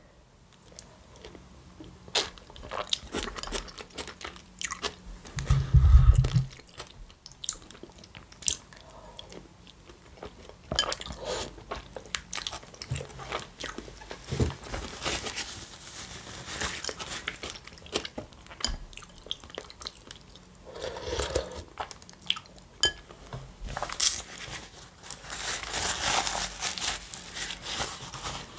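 Mukbang eating sounds: slurping spoonfuls of borscht and crunching and chewing baguette croutons, with many short sharp clicks throughout. A low thump about six seconds in is the loudest sound.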